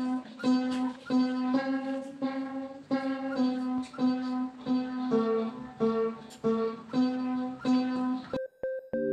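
Upright piano played in a slow, even rhythm, a note or chord struck about twice a second over a repeated low note. It cuts off abruptly near the end, and a synthesizer melody with small electronic beeps follows.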